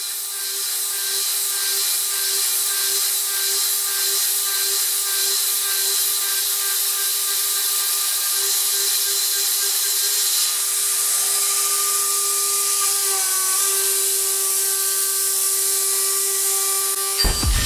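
CNC milling machine cutting aluminium with an end mill: a steady spindle whine over the hiss of the coolant spray nozzles, the pitch stepping slightly partway through. The cut runs with Z zeroed 2 mm below the stock top, so the tool goes too deep toward the vise jaws. Near the end a sudden deep thump cuts in.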